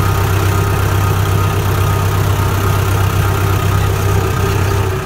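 Tractor engine idling, a low, even drone that holds steady throughout.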